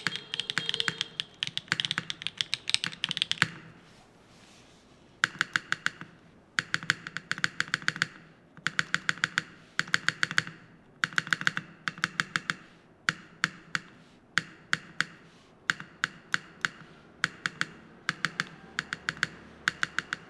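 Typing on a Foxlab Lotus80 TKL custom mechanical keyboard fitted with Gateron Modern Gray switches. A fast run of keystrokes, a pause of nearly two seconds, then short bursts of quick clacks with brief gaps between them.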